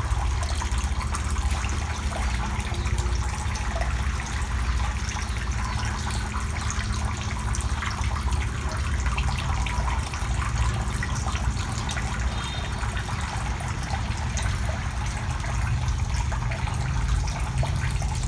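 Water running steadily into a shallow eel-rearing tank, with a low steady hum underneath.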